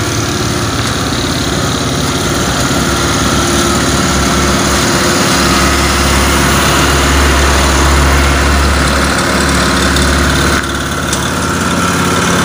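Motorcycle engine of a homemade mini truck idling steadily, with a heavier low hum for several seconds in the middle.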